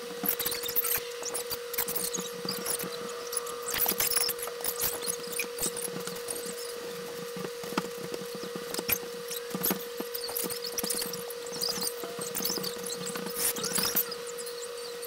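Pencil scratching on sketchbook paper in quick, irregular, scratchy strokes, over a steady low hum.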